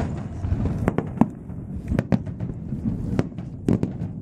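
Aerial fireworks shells bursting overhead: an irregular series of sharp bangs, some in quick pairs, with a low rumble between them.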